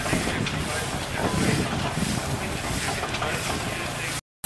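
Steam traction engine running as it drives slowly, largely covered by heavy wind noise on the microphone. The sound cuts off abruptly near the end.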